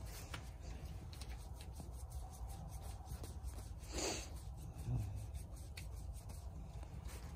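A hand rubbing and scratching a dog's short coat: soft, faint friction noise with light scratchy ticks, and a brief louder rustle about four seconds in.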